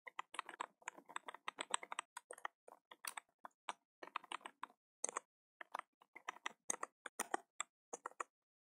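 Faint computer keyboard typing: a run of quick, irregular keystrokes with a few short pauses.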